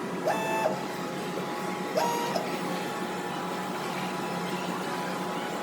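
Cotton candy vending machine running with a steady mechanical whirring hum. Two short pitched tones sound over it, near the start and again about two seconds in.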